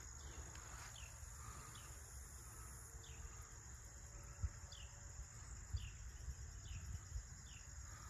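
Faint outdoor insect chorus: a steady high-pitched trill, with a short falling chirp repeating about once a second over it. Low wind rumble and a couple of soft thumps lie underneath.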